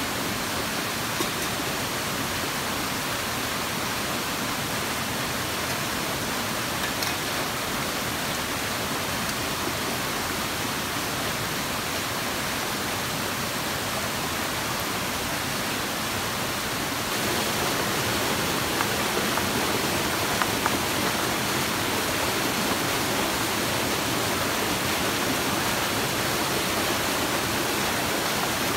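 A rocky forest stream rushing over small cascades: a steady rush of water that grows a little louder about two thirds of the way in, with a few light knocks.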